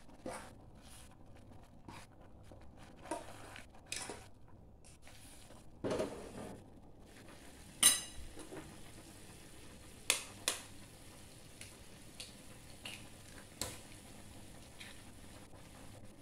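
A metal utensil stirring, clinking and knocking against a metal cooking pot of instant noodles. The knocks are scattered, and the loudest is a sharp ringing clink about 8 seconds in.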